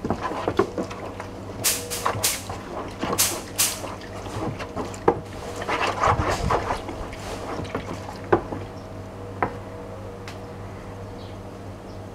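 Wooden spatula stirring a foamy, sudsy liquid in a plastic basin: irregular sloshing and splashing with sharp knocks as the spatula hits the basin. The mixture is N70 detergent paste being dissolved in warm water for homemade dish soap. The stirring dies down after about eight seconds.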